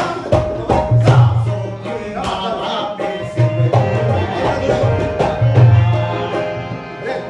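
Harmoniums playing a melody over a brisk tabla rhythm, with regular sharp strokes and deep low drum strokes, in an instrumental passage of qawwali-style music.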